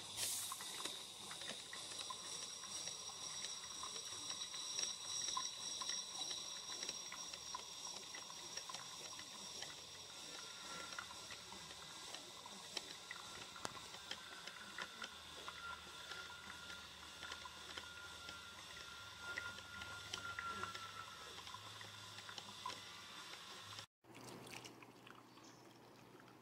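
Electric drip coffee maker brewing: a steady hiss of steam with fine crackling and bubbling as hot coffee drips into the glass carafe. Near the end it gives way to a quieter sound of coffee being poured into a mug.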